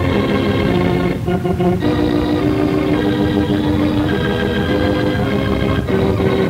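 Closing theme music of a radio drama: sustained, held chords that move to new chords several times.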